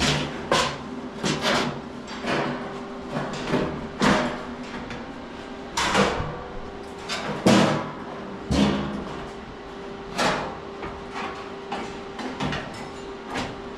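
Steel sheet-metal door panel clunking and knocking irregularly against the door frame as it is test-fitted, a string of sharp metallic knocks, some ringing briefly, over a steady hum.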